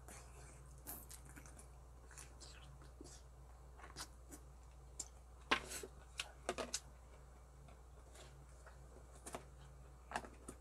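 Close-up eating sounds: chewing and smacking on mouthfuls of braised pork ribs, with scattered sharp clicks from wooden chopsticks against the plastic cup and metal pot. The clicks are busiest around the middle.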